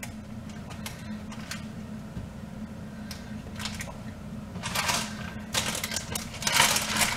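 Typing on a computer keyboard: scattered, irregular key clicks over a steady low hum. Two short, louder noisy bursts come about five seconds in and near the end.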